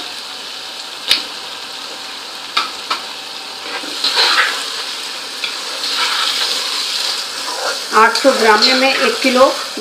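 Mutton pieces frying and sizzling in hot oil with sliced onions, with a steady hiss, while a spatula stirs them and knocks against the pan with an occasional sharp click.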